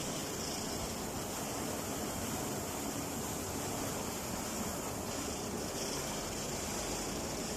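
HFT-250 adhesive tape printing machine running, a steady even whirring hiss with no distinct knocks or rhythm.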